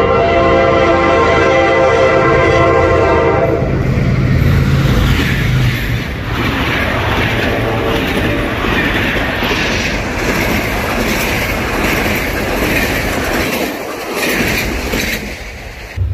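Diesel locomotive horn sounding a long steady blast as the train approaches, stopping about three and a half seconds in. The locomotive's engine then goes by, and the passenger coaches run past with a rhythmic clickety-clack of wheels over the rail joints.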